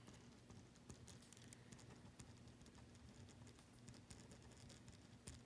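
Faint scratching and tapping of a pen writing on paper, in many small irregular strokes, over a low steady hum.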